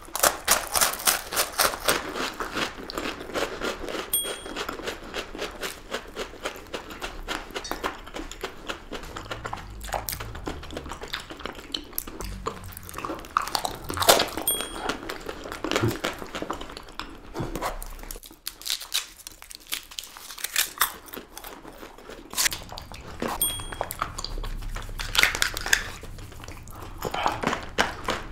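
Close-miked crunching and chewing of chocolate-coated ice cream bars, a dense run of crisp bites with some crinkling.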